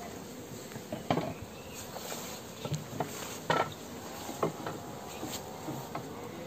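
Honeybees buzzing around an open hive, with a few light knocks and scrapes as the wooden hive box is worked by hand.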